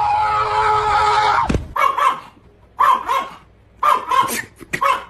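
A long, steady pitched sound that stops about a second and a half in, then a pet animal's short cries, often in quick pairs, about once a second.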